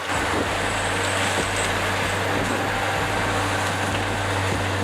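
A heavy vehicle's engine and running gear making a steady, even noise over a low hum. It starts abruptly and holds level.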